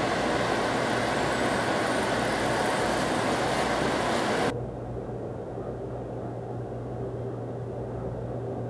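Corn kernels sizzling in a hot frying pan as they are stirred. About halfway through the sizzle cuts off abruptly, leaving a much quieter noise with a low steady hum.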